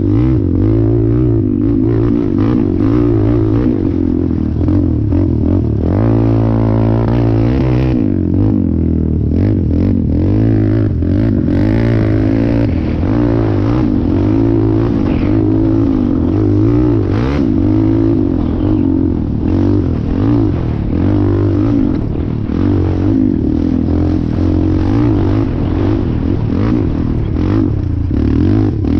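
Train running, with a loud, steady engine drone and some clattering.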